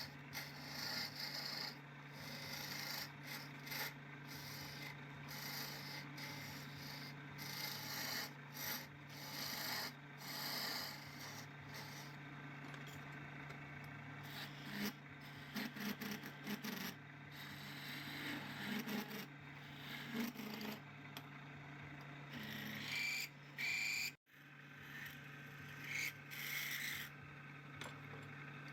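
Irregular abrasive scraping and rubbing strokes, like filing or sanding, over a steady low motor hum. The sound cuts out completely for an instant about 24 seconds in.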